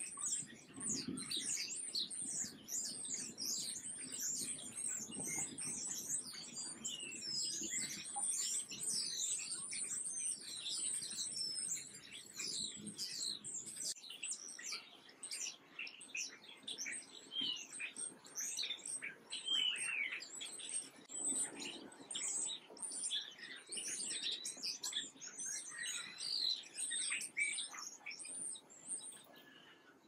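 A flock of house sparrows chirping, many short high chirps overlapping in a dense, steady chatter that stops just before the end.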